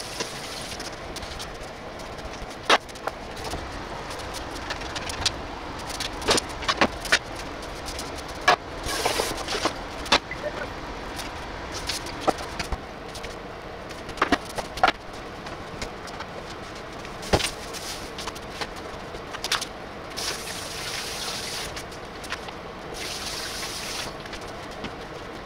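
Scattered sharp clicks and knocks, one every second or two, over a steady hiss, with short stretches of louder hissing twice near the end.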